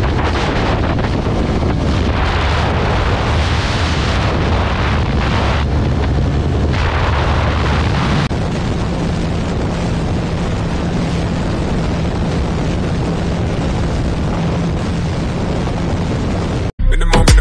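Motorcycle running at high speed, its engine hum buried under heavy wind rush on the microphone. The tone changes about eight seconds in, and the sound cuts off abruptly near the end.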